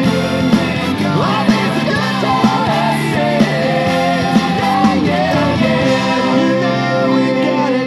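Ska-punk rock music with guitars and melody, played back through a Sony SS-U11 bookshelf speaker driven by a McIntosh MAC 1900 receiver.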